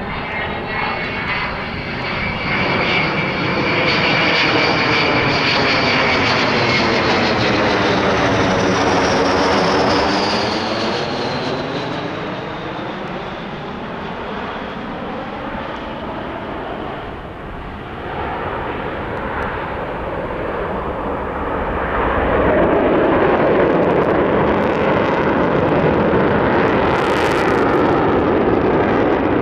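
Avro Vulcan XH558 flying past, its four Olympus turbojets making a loud rushing jet noise with a high whine on top that falls in pitch about ten seconds in. The noise eases for several seconds, then swells loud again.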